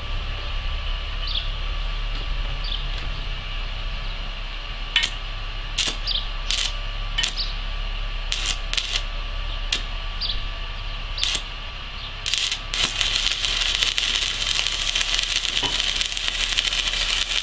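Stick (MMA) welding with a Pocweld MMA 200 mini inverter. The electrode is tapped against the steel in a series of sharp clicks while striking the arc. About thirteen seconds in the arc catches and burns with a steady crackling sizzle.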